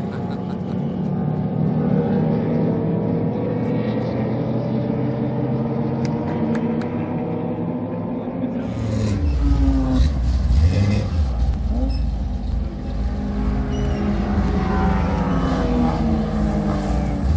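Race car engine running at a steady pitch. About nine seconds in, it gives way to a louder, deeper rumble whose pitch rises and falls as the revs change.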